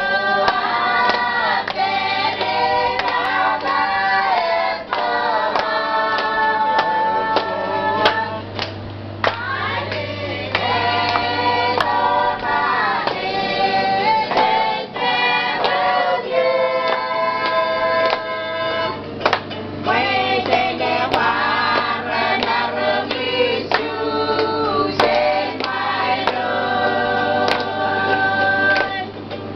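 A group of women singing together in several voices, with sustained notes and a few hand claps.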